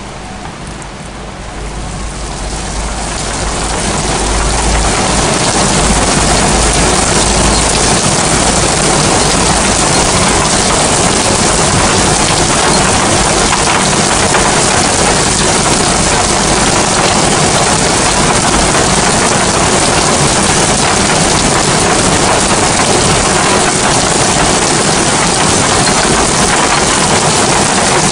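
Heavy rain pouring onto flat roofs, a dense steady hiss that swells over the first few seconds and then holds loud. A low rumble runs under it for the first several seconds.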